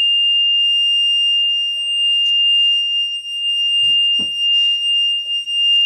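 Fire truck cab warning buzzer sounding one continuous, unbroken high-pitched tone, with a couple of dull knocks about four seconds in.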